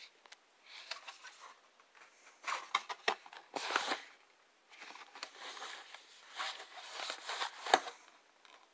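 Handling noise: several bursts of rustling and crinkling, with sharp clicks, the loudest click near the end.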